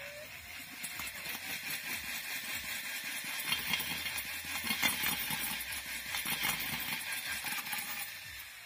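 A drill spinning a braided steel cable inside a cast intake manifold. The whirling cable scrapes and rattles against the inner walls as it scours out carbon deposits. The drill speeds up with a short rising whine at the start, and the sound fades near the end.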